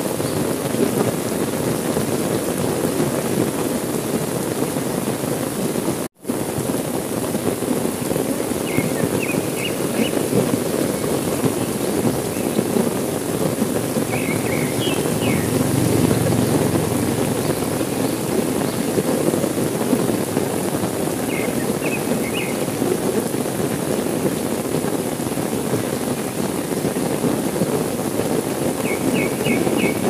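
Heavy rain falling steadily, cutting out for a moment about six seconds in. Faint short high chirps come through the rain four times.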